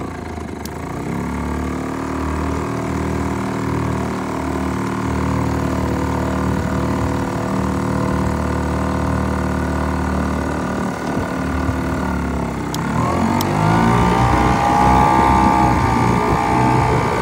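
Small outboard boat motor running steadily under way. About thirteen seconds in, the throttle is opened and its pitch climbs to a higher, louder run toward full throttle.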